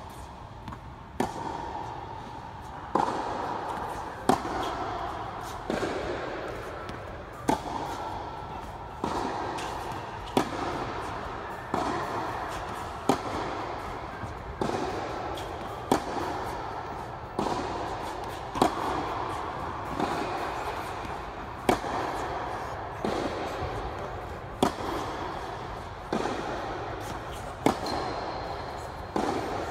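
Tennis rally: a sharp pop of racket on ball about every one and a half seconds, each ringing out in the reverberant indoor hall.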